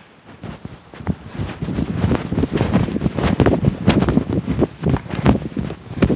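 Close rustling and rubbing right on the microphone, an irregular crackle that builds about a second in and eases near the end, with a sharp click at the very start: handling noise as the phone is moved against soft material.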